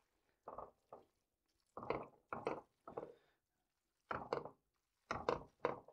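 Metal tongs tossing sauced spaghetti in a skillet: a string of short, irregular knocks and scrapes of the tongs against the pan.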